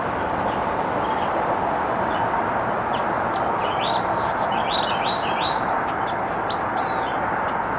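Steady roar of nearby highway traffic, with small birds chirping over it in a run of short, high notes through the middle. The chirping is taken for warning calls about a perched hawk.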